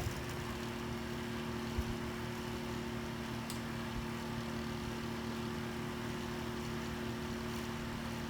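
Steady low electrical hum with a faint hiss, broken only by a couple of faint ticks.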